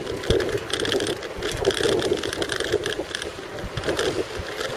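A bicycle and its wire basket rattling and clicking continuously as it rides over stone paving.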